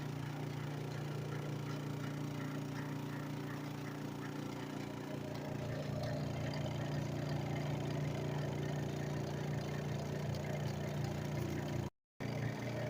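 Costway twin tub washing machine's spin dryer running a spin cycle: a steady motor hum from the spinning drum.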